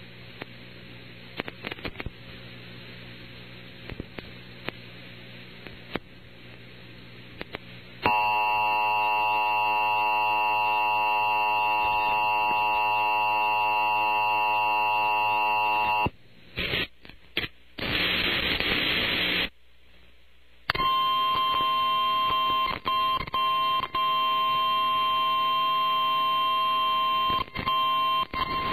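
Emergency Alert System broadcast off NOAA Weather Radio: faint radio hiss with scattered clicks, then a loud, harsh steady alert tone for about eight seconds. The feed breaks up into crackling noise and dropouts, then the steady 1050 Hz weather-radio warning alarm tone sounds, cutting out briefly a few times because of a glitching feed.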